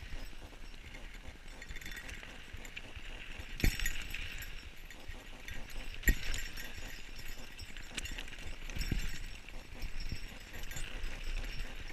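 Mountain bike riding fast down a dirt trail, the bike and its handlebar camera mount rattling over the rough ground, with two sharp knocks from hard bumps, one a little before a third of the way in and one about halfway, and a softer one later.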